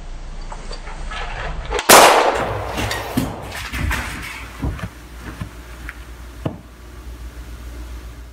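A single loud pistol gunshot about two seconds in, dying away over the next couple of seconds. A few smaller sharp knocks follow, over a low steady hum.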